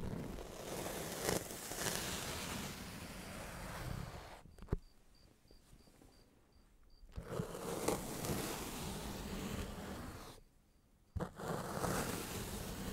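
Kinetic sand being cut with a knife: three long, gritty scraping passes of about three to four seconds each. Between the passes come short pauses, each with a sharp click.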